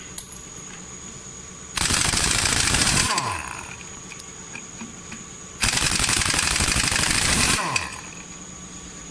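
Kobe 1-inch long-anvil pneumatic impact wrench run in two bursts, about a second and then about two seconds long, hammering rapidly and falling in pitch as it spins down after each trigger release.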